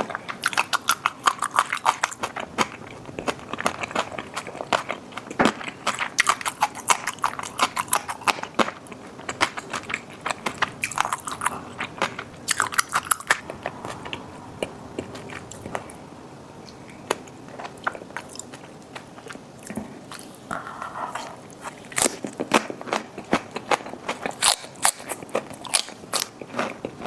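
Close-miked mukbang eating: wet chewing with dense, crisp crunching, typical of biting into freshly made napa cabbage kimchi (geotjeori) wrapped with boiled pork. The crunching quiets for several seconds about halfway through, then resumes.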